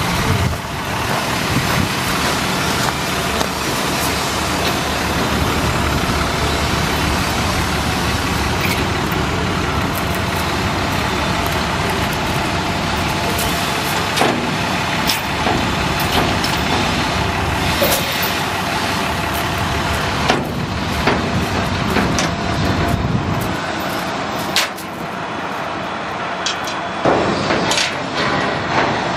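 International 4300 truck's diesel engine idling steadily, with occasional sharp metal clanks and rattles from the steel side panels and their latch chains being handled.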